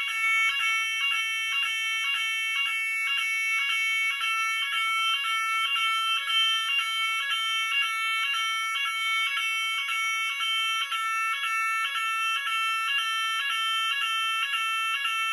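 Roshni RoLP fire alarm sounder, driven by an Esser ECS 80-4 type 1 panel, sounding the general evacuation signal: the French NF S 32-001 evacuation tone, a harsh two-pitch pattern repeating steadily about twice a second.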